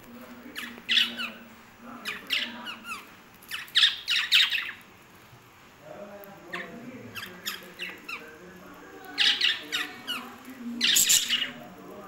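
Small pet parrots in a cage squawking and chirping in shrill bursts, several calls in quick clusters with a short lull about midway.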